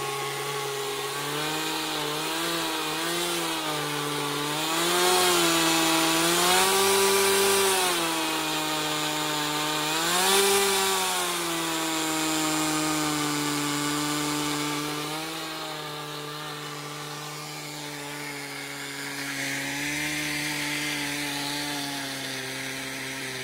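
Single-cylinder glow-fuel model airplane engine running on the ground, its speed rising about five seconds in and again around ten seconds, then settling to a lower, steady speed from about fifteen seconds.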